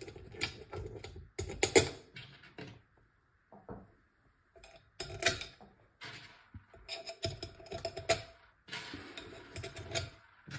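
Irregular small clicks and clinks of metal screws being picked up by hand and set against an aluminium battery casing on a table.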